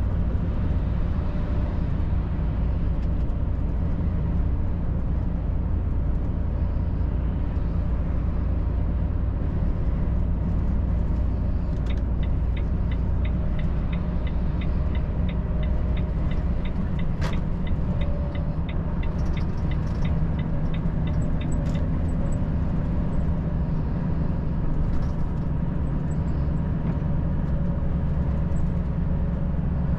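Cab noise of a Volvo FH 540 truck under way: its straight-six diesel and the road make a steady low rumble. About twelve seconds in, a regular electronic ticking starts and runs for roughly ten seconds, with one sharper click in the middle of it.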